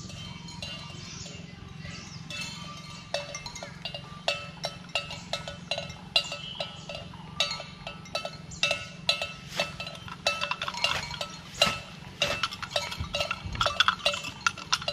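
A bell on a cow's neck clanking irregularly as the animal moves about. The ringing strikes come a few times a second from about three seconds in.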